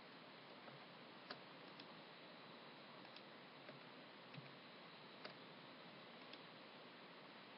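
Near silence: faint steady hiss with about eight soft, irregular clicks of a computer mouse as lines are picked out with the line tool.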